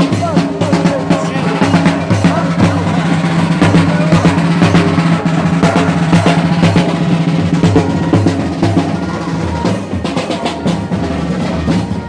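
Marching band's large drums beaten with sticks in a steady, evenly repeating march beat, with a sustained low tone underneath.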